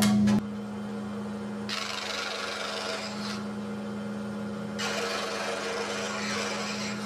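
DeWalt scroll saw running with a steady hum, its reciprocating blade cutting into a wooden board twice, about two seconds in and again about five seconds in, each cut a rasping stretch of a second or two. These are relief cuts, sawn from the board's edge in toward the curve.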